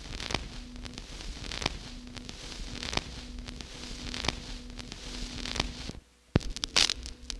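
Surface noise of a 45 rpm vinyl record before the music begins: steady hiss and crackle with a sharp click about every 1.3 seconds, once per turn of the record. About six seconds in it drops almost to silence for a moment, then a sharp click and louder crackles follow.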